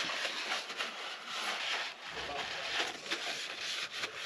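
Cloth rag rubbing and wiping the bilge floor of a boat, in repeated uneven scrubbing strokes, drying it before fresh tar is poured.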